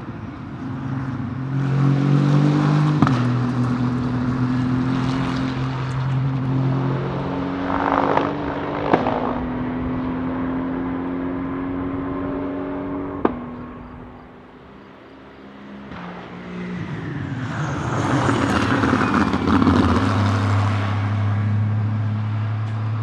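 Aston Martin Vantage GT3's Mercedes-AMG-derived 4.0-litre twin-turbo V8 accelerating hard away through the gears, each upshift marked by a step in pitch and a sharp crack, then fading into the distance. Past halfway a racing engine swells again and passes loudly.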